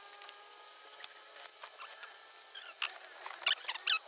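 Scattered sharp metal clicks and taps from welding tools being handled on a square steel-tube frame, with a few louder taps close together about three to four seconds in. No welding arc is heard.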